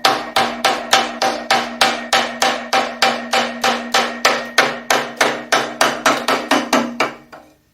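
Rapid, even hammer blows on a metal engine part, about four strikes a second, with a ringing metallic note under them, stopping shortly before the end. The part is being driven loose during the front-cover and timing teardown of an Oldsmobile 303 V8.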